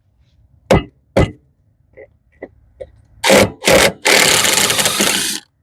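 Hand-tool and handling noises while unbolting a skid plate under a Polaris RZR: two short knocks, a few light ticks, then two short harsh scrapes and a longer harsh scrape of over a second near the end.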